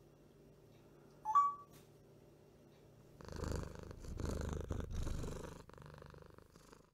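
African grey parrot giving a short rising chirp about a second in, then a low, rough, pulsing noise for about three and a half seconds that stops abruptly.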